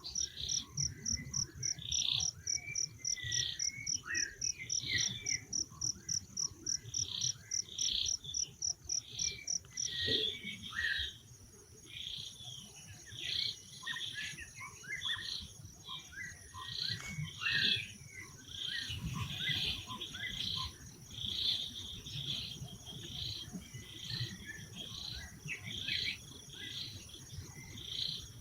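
A forest insect, cricket or cicada type, trills high and steadily, pulsing fast for about the first ten seconds and then holding as a continuous tone. Many short high chirps come and go throughout, with a low rumbling noise underneath.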